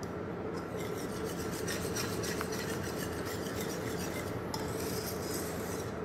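A wire whisk stirring a thick béchamel sauce in a stainless steel pan: steady, quick rasping and rubbing as the wires scrape the pan, with seasoning being mixed into the nearly finished sauce.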